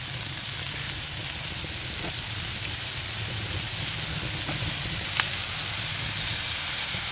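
Beef burger patties sizzling steadily on a cast-iron plancha over a wood fire, growing slightly louder, with a faint click about five seconds in.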